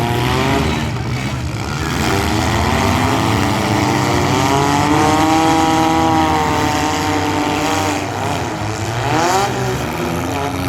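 Demolition derby street stock car engines revving hard and running, their pitch swinging up and down as the cars accelerate and push against each other, with a quick rising rev near the end.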